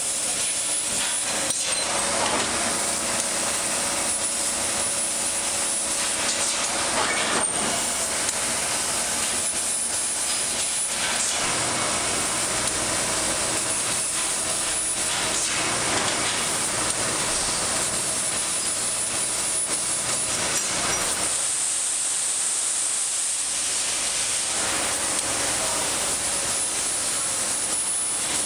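Industrial CNC laser cutter cutting sheet steel: a steady hiss from the cutting head and machine. A faint high-pitched whine comes and goes above it.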